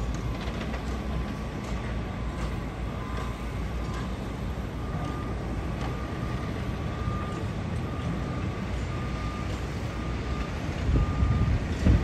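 Construction-site heavy machinery running with a steady low rumble and scattered faint clanks, while a machine's reversing alarm beeps steadily from about five seconds in. A louder low rumble swells near the end.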